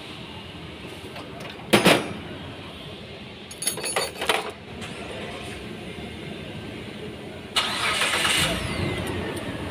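Workshop noise: a loud metallic bang about two seconds in, then a clatter of metal tools or parts with a brief ringing around four seconds. Near the end a sustained rushing machine noise starts abruptly, with a falling whine in it.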